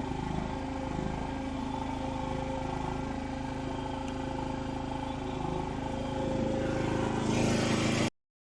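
Mini skid steer's small engine running steadily under load while it works, growing louder in the last two seconds, then cut off suddenly.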